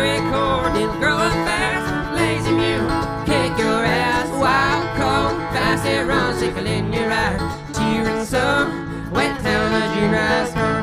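Acoustic string band playing an instrumental break in a bluegrass-style song, with guitar and banjo.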